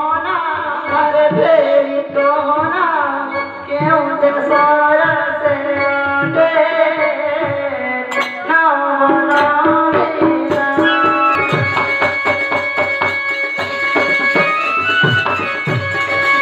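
Live folk-theatre music: a voice singing over hand-drum strokes and a melodic instrument. About ten seconds in, the singing gives way to instrumental playing with held notes.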